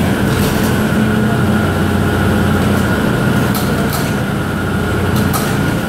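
Excavator engine and hydraulic system running steadily under load, a low hum with a thin steady whine, as an ULTRA 2000 wedge-type hydraulic rock splitter works in a drilled hole in rock. A few faint sharp ticks come through about three and a half and five seconds in.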